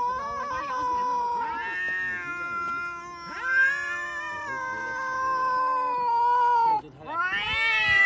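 A domestic cat yowling: three long, drawn-out calls that waver in pitch, the last one rising near the end.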